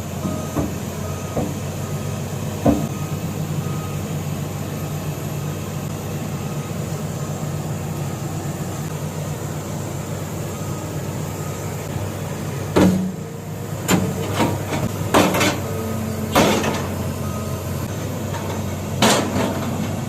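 Heavy construction machine's engine running steadily, with about half a dozen sharp knocks and clanks in the second half.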